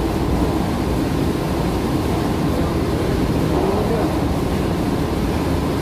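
Steady, loud mechanical rumble of machinery running in a water filter plant, unchanging throughout.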